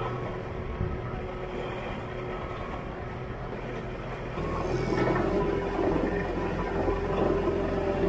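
Vermeer RTX450 ride-on trencher's diesel engine running steadily; about four seconds in it gets louder and holds a stronger, steady drone.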